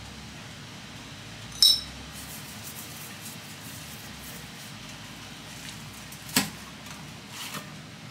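Kitchen clinks from a metal spoon and seasoning jar against a stainless steel bowl while a steak is being seasoned: a sharp ringing clink about one and a half seconds in, a duller, heavier knock past six seconds, and a couple of soft taps near the end.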